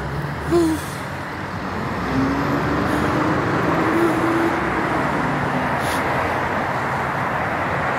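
Steady rumble of road traffic going by. A short pitched note sounds about half a second in, and a longer held tone runs through the middle.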